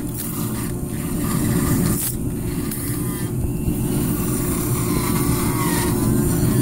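Rotary power carver spinning a tungsten carbide bur, one made for aluminium, as it cuts into hard western yew: a steady motor sound with the rasp of the cut. A higher wavering tone joins in about five seconds in.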